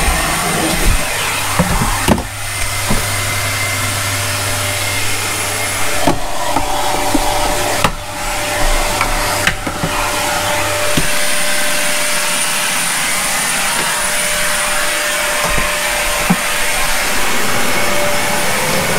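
Dyson cylinder vacuum cleaner running steadily with a thin whine as it hoovers out cupboards, with a few sharp knocks from the nozzle against the woodwork. A low hum drops away about eleven seconds in.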